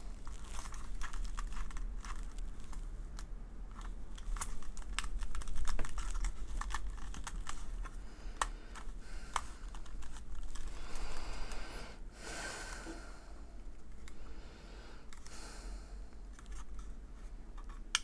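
Hands unpacking a smoke alarm's packaging: scattered small clicks and taps of plastic and cardboard, with a stretch of crinkling rustle about two-thirds of the way through and another shorter one near the end.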